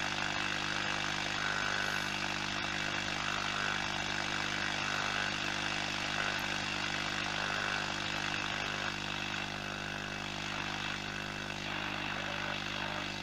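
Philips BF401A valve radio's loudspeaker giving a steady low hum under even static hiss while tuned on medium wave between stations, with no clear signal. The hum is the power-supply ripple hum that an added ripple filter failed to cure.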